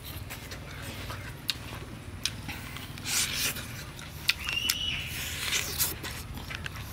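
Close-up eating sounds from a cooked duck leg: wet chewing, lip smacks and sharp little clicks of meat being torn. A brief high squeak comes about two-thirds of the way in, over a steady low background rumble.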